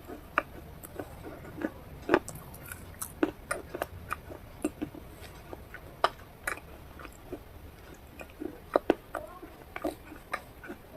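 A person biting into and chewing food, with irregular crisp clicks and crackles, several a second.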